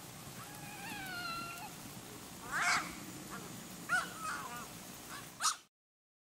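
An animal calling several times: a falling whine about half a second in, a louder call near the middle and short chirps toward the end, over faint outdoor background. The sound cuts off suddenly near the end.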